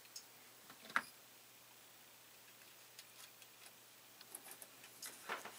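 Faint small clicks and ticks of an IC socket and circuit board being handled and fitted together, with one sharper click about a second in and a scatter of light ticks later on.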